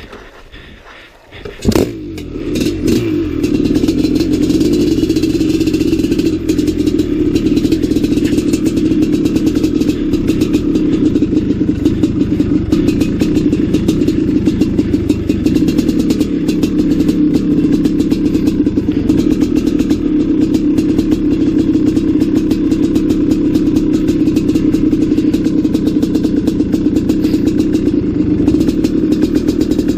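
Maico 700 two-stroke single-cylinder dirt bike engine starting about two seconds in after a sharp clack, then running at a steady low throttle as the bike is ridden slowly along the trail.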